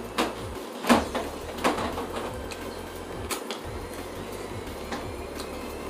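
Close-up eating sounds: wet lip smacks and sucking as a sauced fried chicken wing is eaten by hand and pulled apart at the bone. Three sharp smacks come in the first two seconds, with softer ones later, over a low steady hum.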